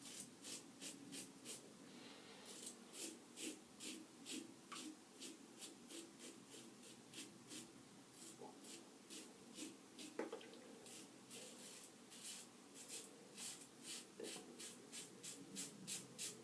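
Safety razor blade scraping through heavy stubble in short, quick strokes, about two to three a second, each a faint crisp scratch.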